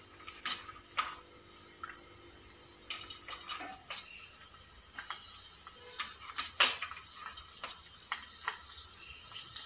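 Chopped garlic and cumin seeds frying in hot oil in a kadhai: a soft sizzle with irregular sharp pops and crackles.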